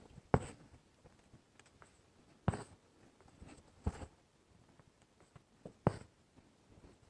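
Embroidery needle being pushed through fabric, with six strands of red stranded cotton thread drawn through after it while working a raised cup stitch. There are four sharp pops about one and a half to two seconds apart, each followed by a short scratchy rustle of thread.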